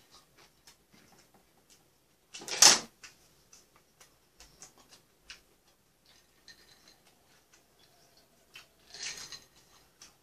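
Eating sounds at a table: scattered small clicks and smacks of chewing and chopsticks. One loud, short rushing noise comes about two and a half seconds in, and a softer one shortly before the end.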